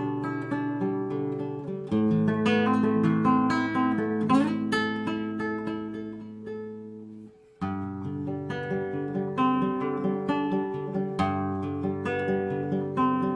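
Acoustic guitar played solo: picked, ringing notes over held bass notes. A little past halfway the playing dies away for a moment, then starts again.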